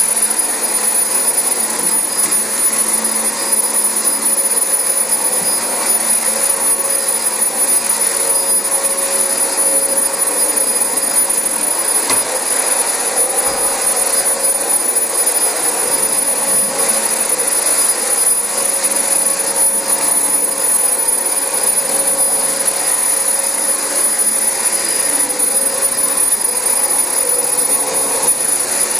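Dyson DC25 upright ball vacuum cleaner running steadily on carpet, a constant rush of suction with a high whine over it.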